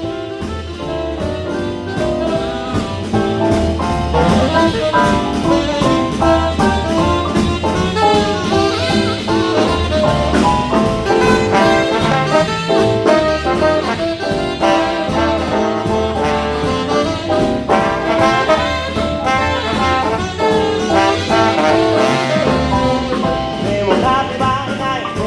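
Swing and early R&B band playing an instrumental break in which trumpet, trombone and saxophone take the melody over a steady bass and beat.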